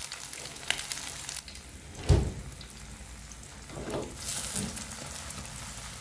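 Egg and tofu omelette mixture frying in oil in a wok over a low flame: a steady sizzling hiss. One loud dull thump about two seconds in.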